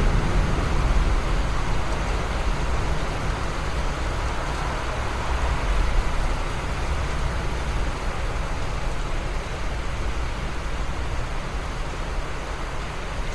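Steady rain hiss with a deep low rumble underneath that eases off over the first few seconds.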